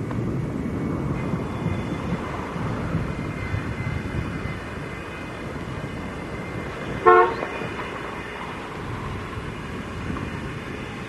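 A single short vehicle horn toot about seven seconds in, over a steady low rumble of traffic and engines.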